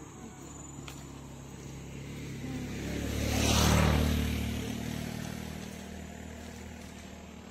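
A motor vehicle approaches and passes by: engine and tyre noise swell to a peak about three and a half seconds in, then fade away.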